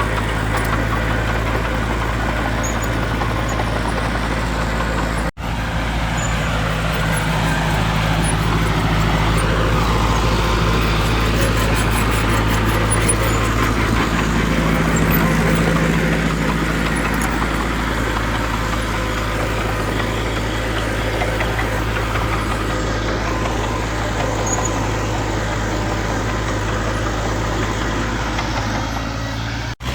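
Heavy diesel engine of earthmoving machinery running steadily at a low, even pitch, swelling a little in the middle. It drops out for an instant about five seconds in.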